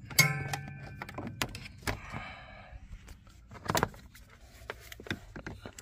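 Handling noise from a coat-hanger wire and cable being worked around plastic footwell trim: a short fast rattle at the start, soft scraping about two seconds in, then scattered clicks and knocks, the loudest about four seconds in.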